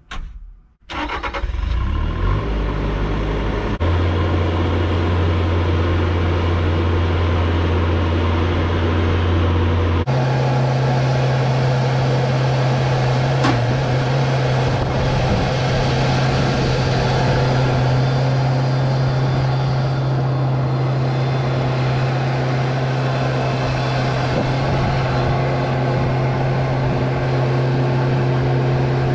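Bobcat S570 skid steer's diesel engine running steadily. About a third of the way through, its pitch steps up abruptly to a higher, steady engine speed.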